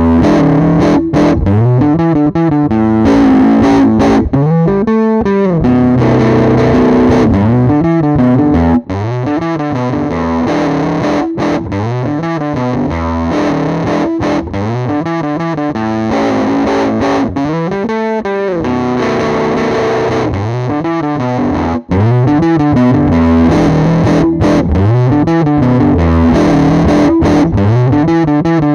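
Squier Jazzmaster electric guitar played through a Dunlop Fuzz Face Mini fuzz pedal straight into an audio interface, repeating a distorted riff over and over. The sound breaks off briefly about nine seconds in and again near 22 seconds, and the stretch between the two breaks is a little quieter.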